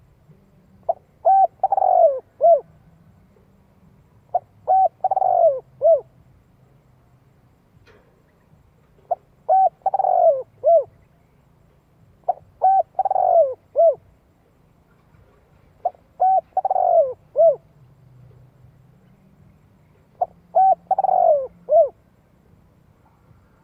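Spotted dove calling: six phrases about every four seconds, each a few short coos around a longer, falling middle coo.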